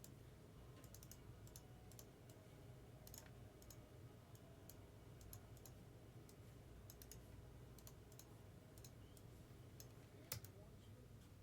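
Faint, scattered clicks of a computer keyboard and mouse over a steady low hum, with one sharper click about ten seconds in.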